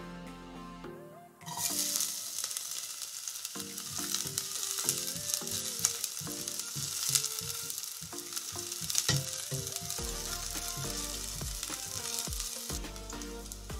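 Sliced garlic sizzling in hot cooking oil in a stainless steel pot. The sizzle starts suddenly about a second and a half in as the garlic hits the oil, and it keeps going while the garlic is stirred with a silicone spatula.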